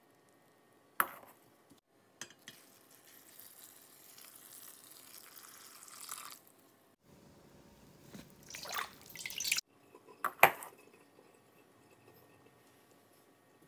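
Water poured from a glass jug onto mung bean sprouts in a stainless steel colander, splashing through the beans and draining through the holes, in two pours. A few sharp metal knocks from the colander and pot, the loudest a double clank about ten seconds in.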